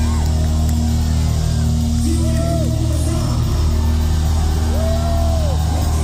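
Live heavy rock band playing, with steady low bass notes underneath and two long held higher notes, one around two seconds in and one near the end.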